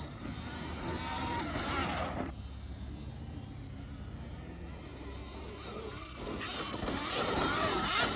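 Sur-ron X Light Bee electric dirt bike riding past on loose sand: an electric motor whine that wavers in pitch under the hiss of knobby tyres throwing up sand. It passes close twice, loudest about two seconds in and again near the end.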